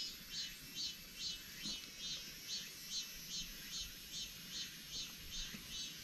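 Insects calling: a steady high buzz with a rhythmic run of short falling chirps, about two or three a second.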